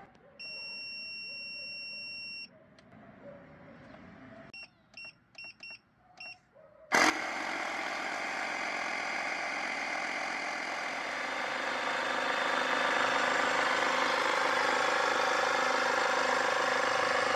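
Portable jump-starter with built-in air compressor: one long electronic beep, then about five short beeps from its controls, then about seven seconds in the compressor starts with a sharp click and runs steadily, growing a little louder partway on, pumping air into a flat camper tyre through a hose on the valve.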